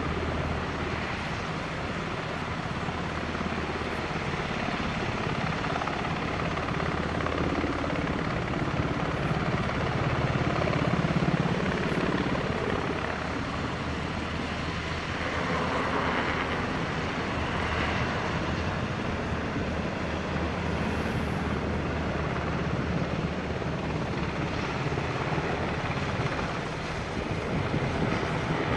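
Sikorsky UH-60 Black Hawk military helicopters flying a low display pass, their rotors and twin turboshaft engines running steadily. The sound swells a little louder around the middle as they pass.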